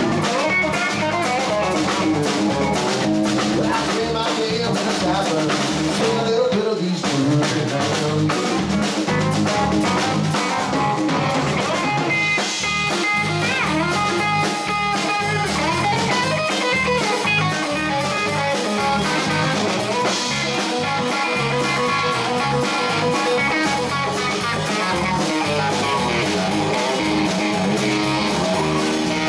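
A live three-piece rock band playing: electric guitar, electric bass and drum kit. The electric guitar carries the lead, with held, bent notes from about twelve seconds in.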